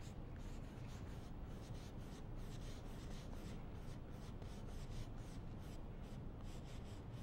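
A big, stiff bristle brush stroking oil paint across a canvas in quick, short strokes, several a second, over a low steady hum.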